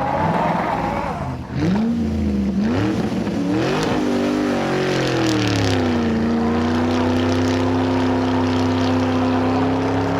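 A vehicle engine or motor running, its pitch rising and falling unevenly for a few seconds, then dropping and holding steady.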